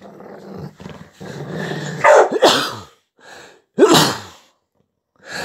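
Dog play-growling low while tugging on a toy that is being pulled from its mouth, then loud barks about two seconds in and again about four seconds in.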